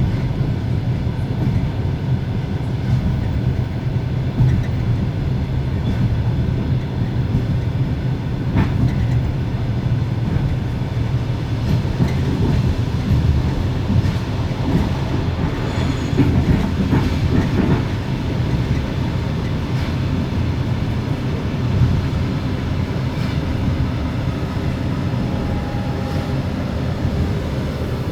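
Russian compartment passenger car at steady speed: the car's generator runs with a steady hum over the rumble and clickety-clack of the wheels on the rails. The compartment door and the corridor window are open, so the track noise comes in fully.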